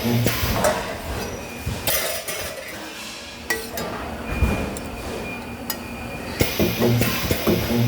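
Spot welding work: metal parts clinking and knocking against each other. Short low buzzing hums come around the start and again near the end, typical of a spot welder firing.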